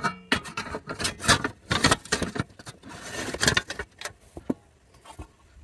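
Empty metal power-supply case being handled on a wooden bench: an irregular run of metallic knocks, clanks and light scrapes.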